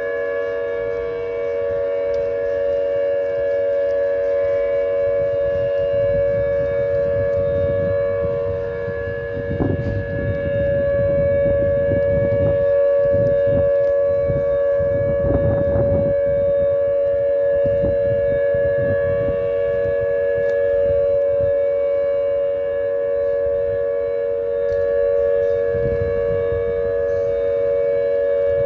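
Civil-defence air-raid sirens holding a steady, unbroken tone, several sounding together at slightly different pitches: the continuous siren signal of Hour "W" that commemorates the Warsaw Uprising. Low rumbling noise on the microphone comes and goes, mostly from about nine to sixteen seconds in and again near the end.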